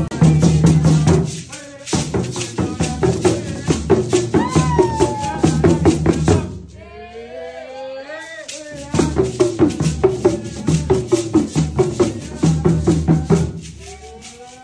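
Hand drums beaten in a fast, even rhythm with voices singing over them. The drumming stops for about two seconds a little past the middle, leaving the singing, then picks up again and fades near the end.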